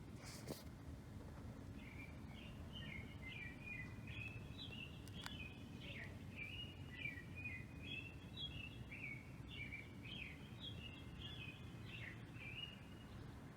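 A songbird singing a long, continuous run of quick chirping notes, faint over a low steady background rumble, with a brief click near the start.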